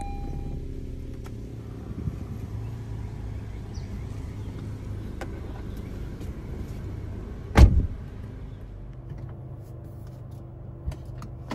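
Honda Civic RS hatchback's 1.5-litre turbo four-cylinder idling with the air-conditioning compressor running, a steady low hum. About two thirds of the way in the driver's door shuts with a heavy thump, and the hum becomes quieter and more muffled.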